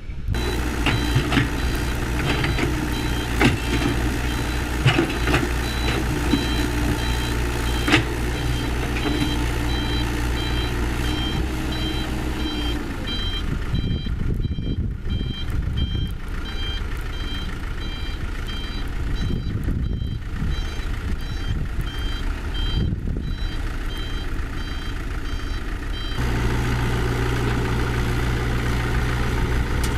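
Reversing alarm on heavy construction machinery beeping steadily over a running diesel engine, with a few sharp knocks in the first several seconds. The beeping stops near the end as the engine note rises.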